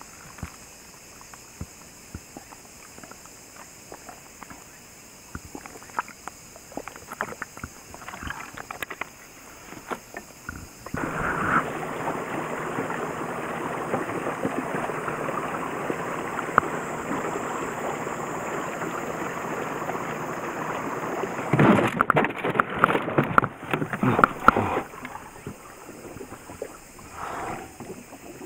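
A small boat on the water. For about ten seconds there are only faint knocks and lapping. Then a steady rush of water sets in, and near the end a cluster of loud knocks and splashes breaks it.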